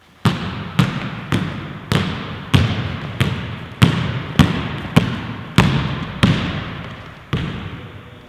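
Two basketballs dribbled together on a hardwood gym floor, about one and a half bounces a second, each bounce ringing on in the gym's echo. The bouncing stops about a second before the end.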